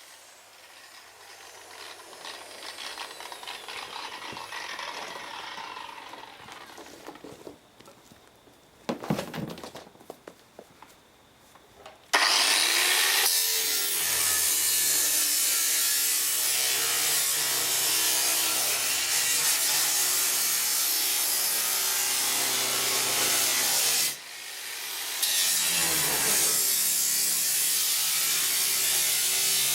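Large angle grinder cutting car-body sheet metal: quieter handling sounds and a short clatter come first, then the grinder starts about 12 seconds in and runs loud and steady. It stops briefly near the end, spins back up and cuts on.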